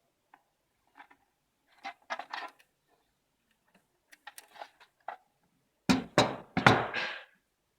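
Handling noise while a power supply is unboxed: scattered light clicks and rustles, then a louder run of knocks and rustling about six seconds in.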